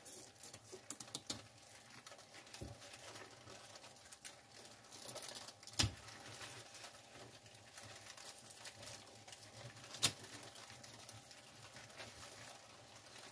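Kitchen scissors snipping the small fins off a fresh mackerel, with faint clicking and rustling as the fish is handled in rubber gloves; two sharper snips stand out, about six and ten seconds in.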